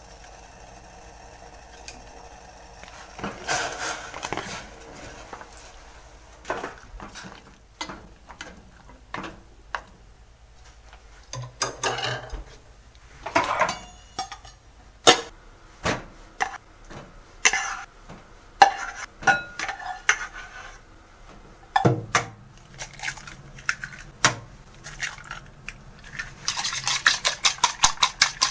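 Cooking utensils clinking and knocking against a stainless steel pot as sliced meat is stirred into simmering sauce, in scattered strikes. Near the end eggs are beaten in a bowl, a fast, even run of clicks about five a second.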